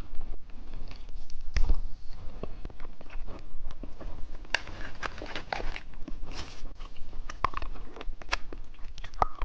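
Close-miked chewing and crunching of eyeball candy, a run of sharp crunches and clicks that grows dense about halfway through.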